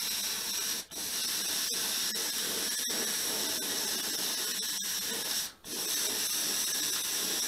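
Gravity-feed airbrush spraying paint: a steady hiss of compressed air through the nozzle, cut off briefly about a second in and again after about five and a half seconds as the trigger is released.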